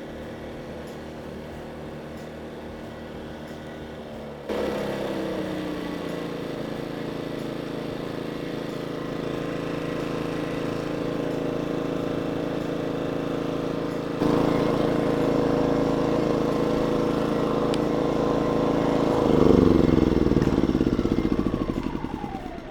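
Small inverter generator engine running steadily and smoothly, no longer hunting, now that its carburetor and mounting gasket are properly installed. It rises in speed about four seconds in and again partway through, then near the end it is shut off and winds down with a falling pitch.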